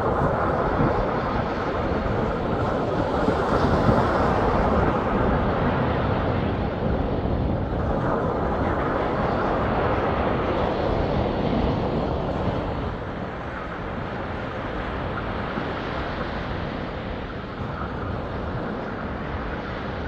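Gulf of Mexico waves breaking and washing up the beach: a steady rush that swells twice and eases off about two-thirds of the way in.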